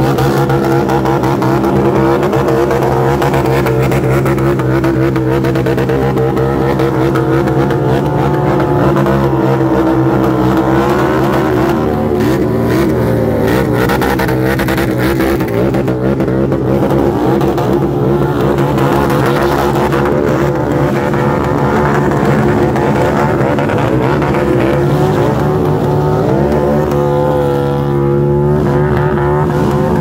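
Motorcycle engines held at high revs while spinning their rear tyres in burnouts, a loud steady engine note that wavers in pitch a couple of times as the throttle changes.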